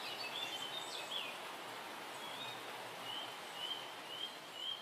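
Outdoor nature ambience: a steady background hiss with small birds chirping, a few mixed calls in the first second, then a run of about five short chirps roughly half a second apart.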